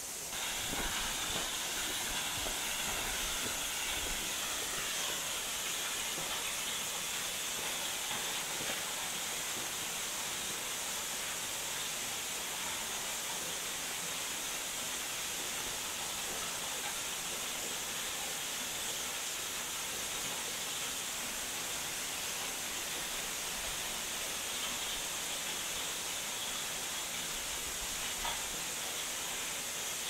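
Steady rushing hiss of a narrow waterfall, about 15 m high, pouring down a rock face into its plunge pool. It sets in just after the start and holds even throughout.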